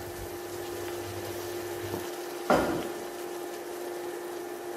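Induction cooktop humming steadily under a faint frying hiss from the pan of beef and onions. A single dull knock comes about two and a half seconds in.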